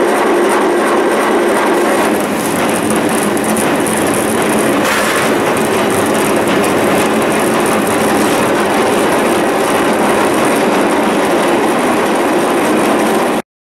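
Vintage farm grain-processing machine running under power, giving a loud, steady rattling clatter that cuts off abruptly near the end.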